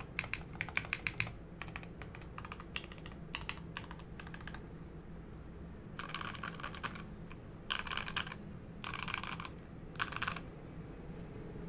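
Modded Royal Kludge RK61 mechanical keyboard being typed on. A quick run of individual keystrokes gives way, about six seconds in, to four short spells of very rapid key presses.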